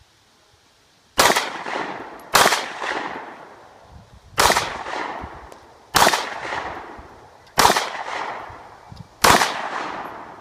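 Six pistol shots fired at an uneven pace over about eight seconds, the first two about a second apart. Each shot rings out with a long echo.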